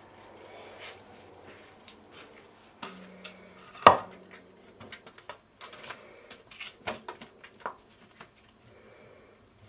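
A cat playing among plastic bottles on a tiled floor: irregular taps, clicks and small clatters, with one loud sharp knock about four seconds in.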